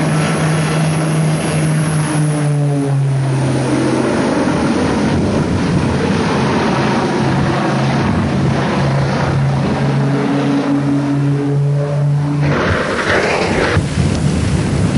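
Twin-engine propeller plane's engines droning in a low pass, the pitch dropping about three seconds in as it goes by and shifting again later. Near the end the engine drone stops and a rushing noise takes over as the plane crashes and burns.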